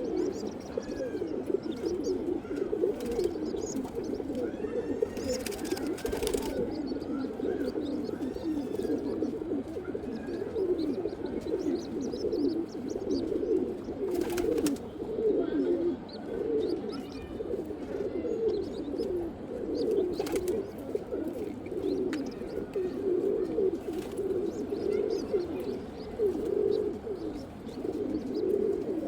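Domestic pigeons cooing: many overlapping coos run on without a break, with a few faint higher chirps and several brief rustling noise bursts.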